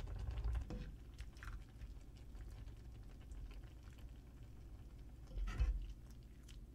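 Stainless steel ladle clinking and scraping against a pot and bowl as soybean-paste stew is ladled out, with small taps throughout and a louder knock about five and a half seconds in.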